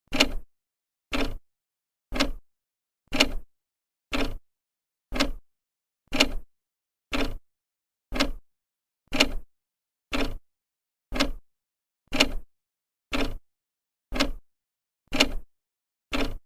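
Second hand of an old clock ticking steadily, one sharp tick each second, each tick a brief double click.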